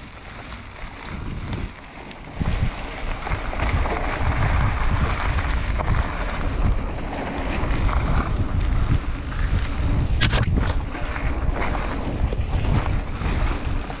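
Wind buffeting the microphone of a mountain-bike action camera as the bike picks up speed downhill, a low rush that jumps up about two seconds in. Knobby tyres roll on the dirt trail and the bike knocks and rattles over bumps, with a short cluster of sharp knocks near the end.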